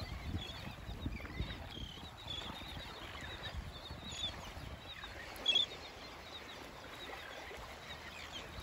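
Shorebirds giving many short chirping calls over small waves lapping on a sand bar, with one louder call about five and a half seconds in.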